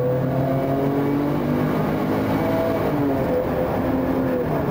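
Police cruiser driving at speed, heard from inside: a steady engine hum and road noise, with a few faint tones that drift up and down in pitch.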